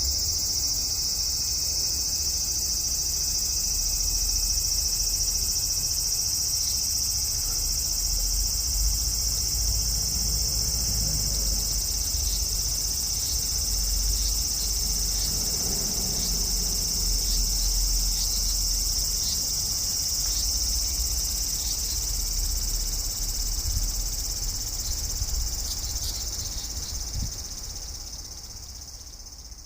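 A large brown cicada (aburazemi) singing one continuous, steady, high buzz that fades out over the last few seconds.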